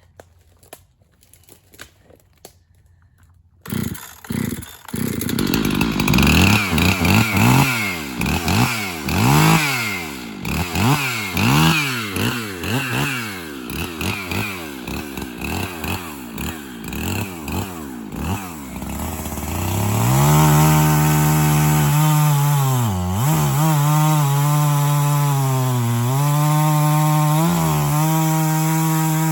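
Gasoline chainsaw starting up a few seconds in, then revved up and down over and over. From about two-thirds of the way through it runs at a steady high speed, with a few brief dips in pitch.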